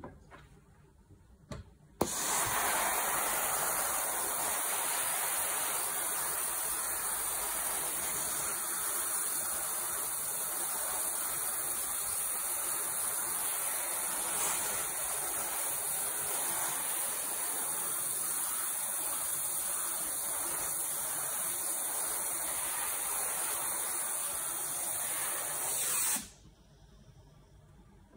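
Philips PerfectCare 9000 steam generator iron giving a continuous jet of steam through its soleplate into the fabric: a steady, loud hiss that starts suddenly about two seconds in and cuts off suddenly near the end.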